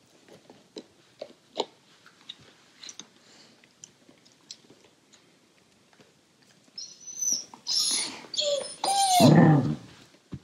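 A dog gnawing on a chew, faint scattered clicks, then about seven seconds in a Siberian husky breaks into loud husky "talk": a few whining, yowling calls, the last and loudest falling in pitch, in protest over the chew.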